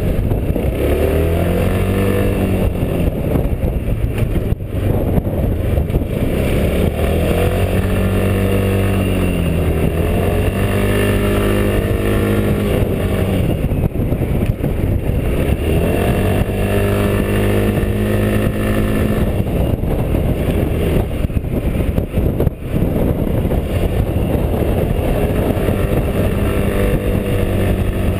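Quadro 350D three-wheeled tilting scooter's engine running under way on a climb, its pitch rising and falling several times as the throttle opens and closes, over a steady rush of wind on the microphone.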